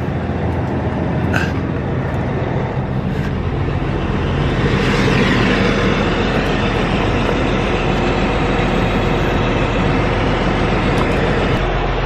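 Diesel semi truck engine idling steadily while warming up, growing a little louder about four seconds in.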